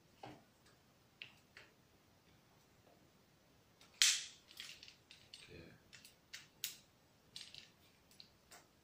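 Plastic clicks and knocks from a Celestron NexYZ smartphone adapter being handled and fitted onto a telescope eyepiece. A few soft knocks come first, the loudest click about four seconds in, then a run of smaller clicks.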